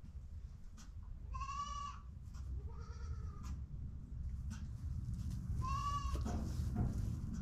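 Goat doe in labour crying out as she pushes: three strained bleats, about a second and a half, three and six seconds in, the middle one lower than the other two.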